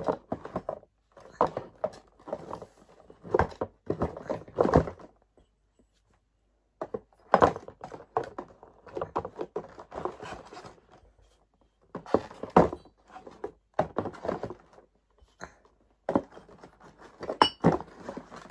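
Ceramic mugs being set one by one back into a cardboard gift box: repeated knocks and thunks of mug against cardboard, with cardboard scraping, coming in short clusters separated by brief pauses.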